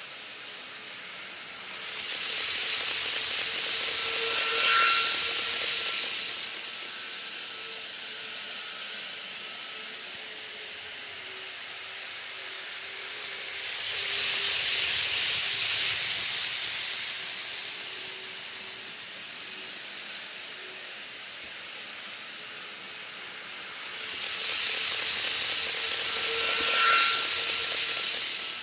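Model Shinkansen trains running past on a model railway, three passes each a few seconds long: a rising and fading rush of wheel and motor noise with a faint steady whine. Between the passes a quieter steady hiss remains.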